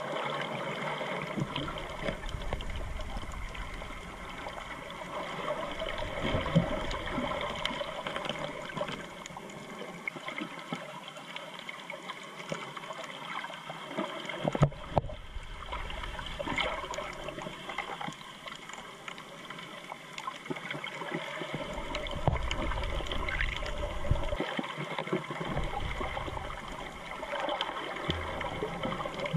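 Underwater water noise picked up by a submerged GoPro in its waterproof housing: a steady, muffled swishing and gurgling, with low rumbles coming and going and a few short knocks, one clearer about halfway through.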